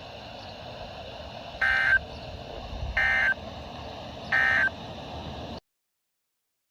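Three short Emergency Alert System (SAME) end-of-message data bursts, about 1.3 seconds apart, over a steady radio hiss. They mark the end of the broadcast flash flood warning. The audio cuts off to silence near the end.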